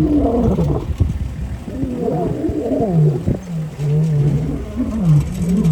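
Male lions roaring, more than one voice overlapping at first, the bout running into a series of short, deep grunting calls about two a second near the end.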